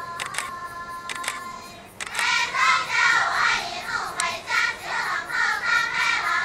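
A women's choir singing together. A held note tapers off over the first two seconds, then the whole group comes in loudly on a new phrase, many voices moving together.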